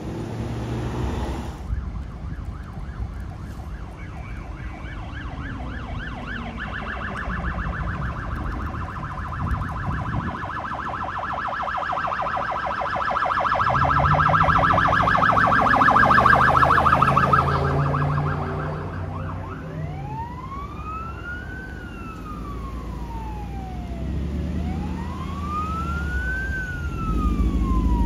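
Emergency vehicle's electronic siren, first a rapid warbling yelp that grows louder, then about halfway through switching to a slow wail that rises and falls twice. A heavy engine rumble swells in around the loudest point as the vehicle passes.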